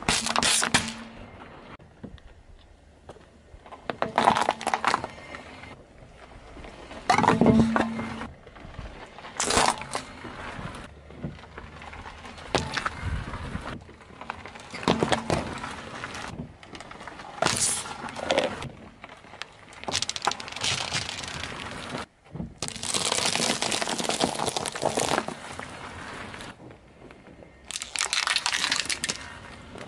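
A car tyre rolling over and crushing small objects one after another, such as foil pâté tins and sticks of chalk: a series of about ten bursts of cracking and crunching with short pauses between, the longest a drawn-out crackle about 23 seconds in.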